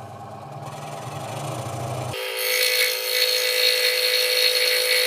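Ryobi scroll saw running, its motor hum rising as it is sped up; about two seconds in the blade starts cutting wood, giving a steady higher-pitched drone with a rasping hiss.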